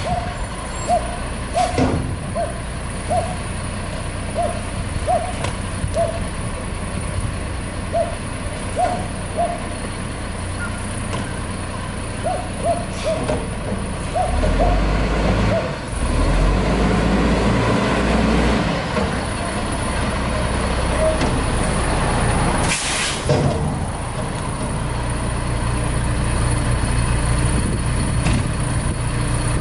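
WhiteGMC Heil FL garbage truck's diesel engine idling, with revs rising for several seconds about halfway through. A short air-brake hiss follows. Short, evenly repeated chirps sound over the engine in the first half.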